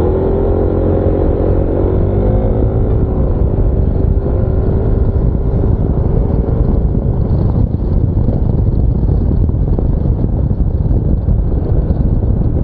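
Yamaha NMAX 155 scooter's single-cylinder engine running under way, a steady drone with a pitched whine through roughly the first half, over heavy low wind rumble on a lavalier mic with no wind shield.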